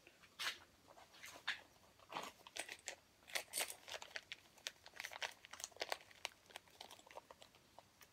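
Small plastic packaging handled at close range: irregular crinkles and light clicks, quick and uneven.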